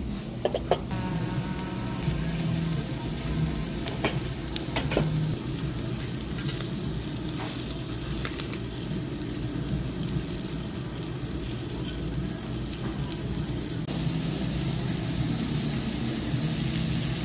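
Pork sizzling steadily on a hot tabletop grill, with a few light clicks in the first second and again about four to five seconds in.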